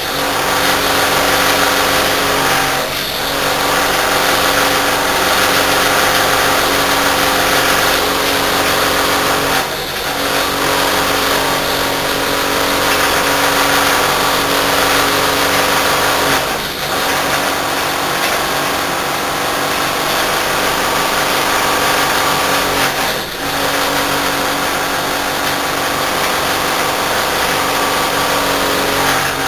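Air-conditioner rotary compressor running loud and continuous under deliberate overload: a steady hum under a dense rattle, a death rattle as it is driven toward failure. The sound dips briefly about every six to seven seconds.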